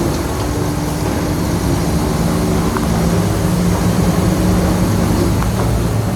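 Heavy diesel engine of earthmoving machinery running steadily, a loud low drone that shifts slightly in pitch, with a couple of faint clicks.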